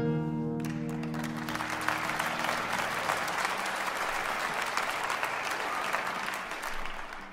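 An oud's last note rings out and dies away as applause begins about half a second in. The applause holds steady for several seconds and fades near the end.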